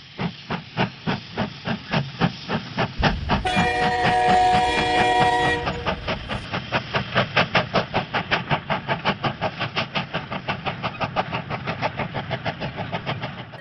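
Train sound effect: steady clickety-clack of wheels over rail joints at about four to five clicks a second. About three and a half seconds in, a several-note train whistle sounds for about two seconds.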